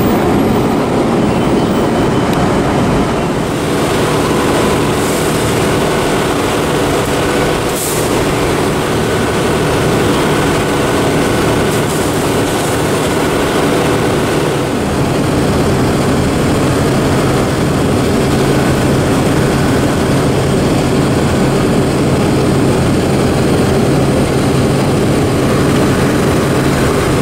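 Heavy diesel engines of parked fire apparatus running steadily at idle, a constant low hum with no pauses.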